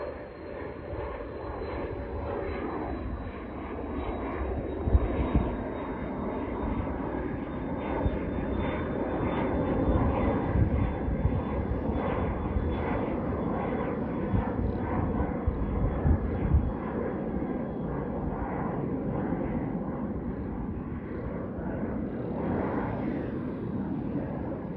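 Twin Pratt & Whitney Canada PW535E turbofans of an Embraer Phenom 300 climbing away after takeoff: a steady jet roar with a thin high whine that slowly falls in pitch. A few low thumps come through about five seconds in and several more around the middle.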